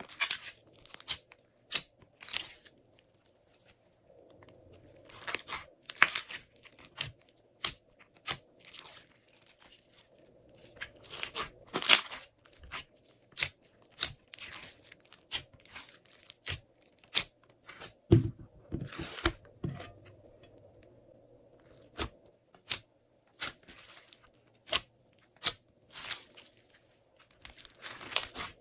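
Glossy slime being worked by hand, giving irregular sticky clicks, pops and crackles in bursts, with a few duller squelching thumps about two-thirds of the way through.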